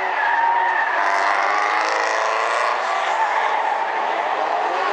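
Several compact race cars' engines running hard together, their pitches sliding up and down as the cars go around the track.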